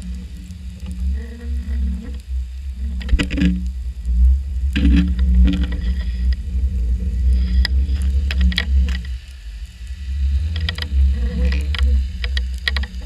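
Underwater sound heard through a GoPro's housing as the camera swings on its drop line over a reef: a steady low rumble of water moving past the housing, a faint hum, and several clusters of sharp clicks and knocks.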